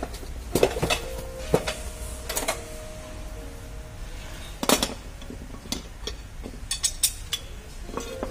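Metal tools and brake parts clinking and knocking during hand work on a pickup's brakes: irregular sharp metallic clicks and clanks, several of them ringing briefly.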